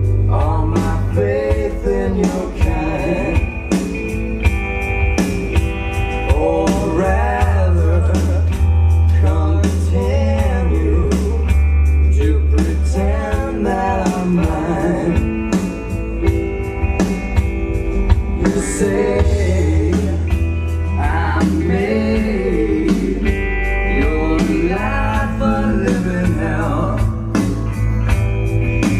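A blues-rock song with a singing voice, guitar and long, deep bass notes, played from vinyl through Rega Aya floor-standing loudspeakers in a demo room.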